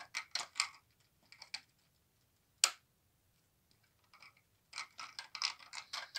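Plastic Lego pieces and minifigures clicking and clattering as a hand handles them. There are a few light clicks, one sharp click about two and a half seconds in, and a quick run of clicks near the end.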